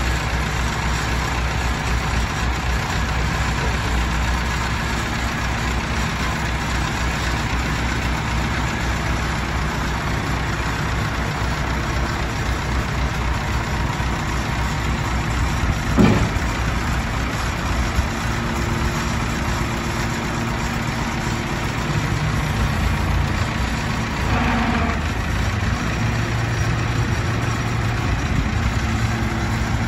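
Allis-Chalmers 175 tractor's engine running at a steady idle while its front loader is lowered, with a single sharp clunk about halfway through.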